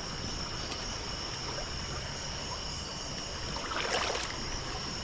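Steady water noise with a thin, steady high-pitched tone over it, and a brief rustle a little before four seconds in.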